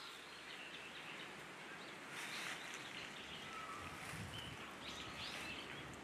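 Wind noise blowing through a wood, gusting more strongly about two seconds in, with a few faint bird calls in the background.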